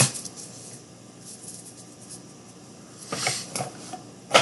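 Trading cards being handled on a tabletop: a sharp click at the start, a short rustling scrape about three seconds in, and a knock near the end.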